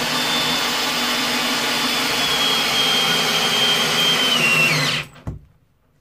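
Parkside PSBSA 20-Li B2 cordless drill-driver in first gear driving a hex-head screw into a block of old timber through a socket. It runs steadily with a high whine, which drops in pitch as the screw seats, then stops about five seconds in.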